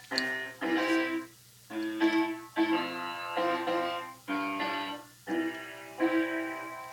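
Keyboard instrument playing a slow, uneven run of struck notes and chords, each starting sharply and fading away over about half a second to a second.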